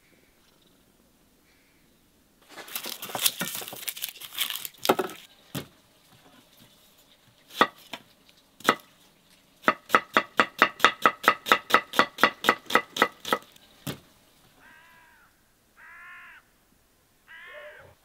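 A kitchen knife chopping an onion on a wooden cutting board: a few seconds of scraping and clattering, two single cuts, then a fast, even run of chops at about five strokes a second. Three short animal calls near the end.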